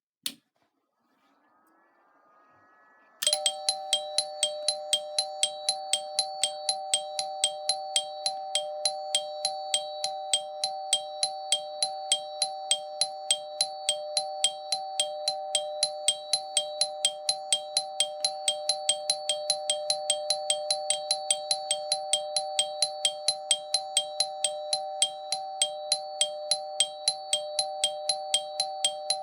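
Railway ATS warning bell on a Japanese train cab alarm unit, switched on with a click and then, about three seconds in, ringing continuously with rapid, even hammer strikes over a steady two-note ring. It is the alarm that warns the driver that the ATS has picked up a caution from a signal.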